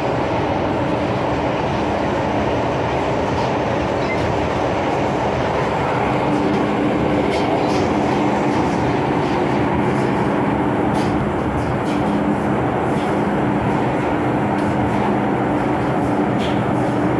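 MTR M-Train electric multiple unit running between stations: a steady rumble of wheels on track with scattered light clicks. A steady hum strengthens about six seconds in.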